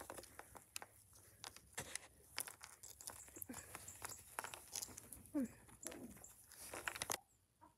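Small plastic toy cat figurines clicking and scraping on brick as they are picked up and set down, with many short irregular taps and the rustle of hands and sleeve. A short faint voice-like sound comes about five and a half seconds in.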